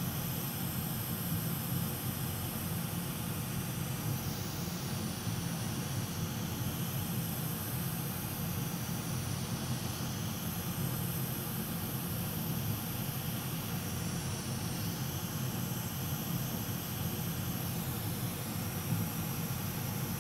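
Hot air rework station blowing a steady stream of air through its nozzle onto a Wi-Fi module to melt its solder for removal: an even rushing hiss with a low hum underneath.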